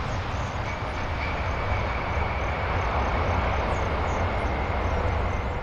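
Boeing 747 jet airliner landing and rolling out on the runway: a steady rumble of its four jet engines, with a thin steady whine coming in about a second in.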